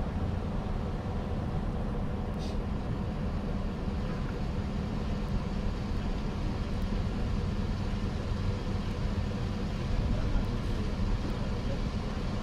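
Fire engine's diesel engine idling with a steady low hum.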